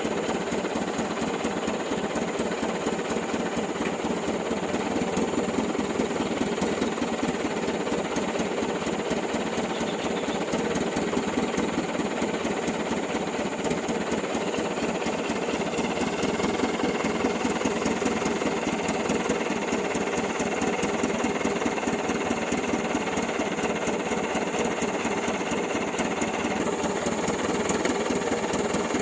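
Old diesel truck engine running steadily with a fast, dense clatter, getting slightly louder a little past the middle.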